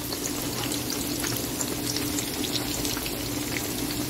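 Batter-coated eggplant slices (beguni) deep-frying in hot oil: steady sizzling with many small pops and crackles, over a steady low hum.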